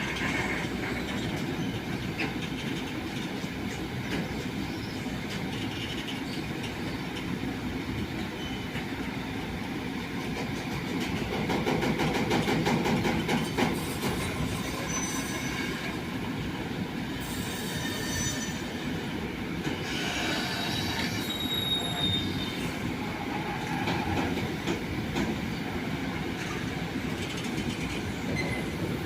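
Train rolling on the track, with steady wheel-and-rail noise that swells about halfway through and brief high-pitched wheel squeals a little later.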